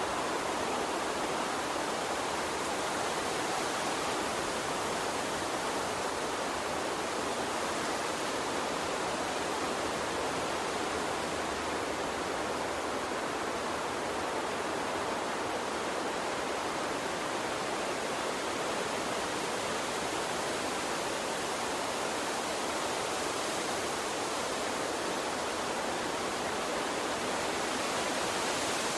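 Gentle water stream flowing, a steady even rushing with no breaks.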